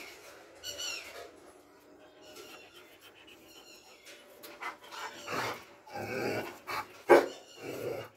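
Doberman pinscher whining and barking: a short pitched whine about a second in, then a run of several barks in the second half, the loudest just after seven seconds.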